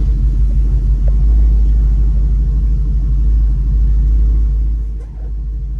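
2014 Ford Coyote 5.0 L V8 in a 1967 F100 running at low, steady revs, heard from inside the cab as the truck rolls out slowly. The sound dips briefly about five seconds in.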